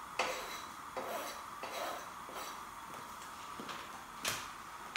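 A kitchen knife clinking and knocking against a plate, a handful of scattered separate knocks, the loudest one near the end.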